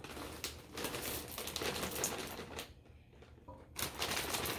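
Chocolate chips poured from a plastic bag into a stainless steel mixing bowl: a rapid rattle of small ticks with the bag crinkling. It stops for about a second around three seconds in, then starts again.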